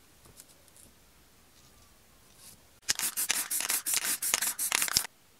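Aerosol spray-paint can hissing in a rapid run of short bursts, about a dozen in two seconds, starting about three seconds in and cutting off suddenly. A few faint handling rustles come before it.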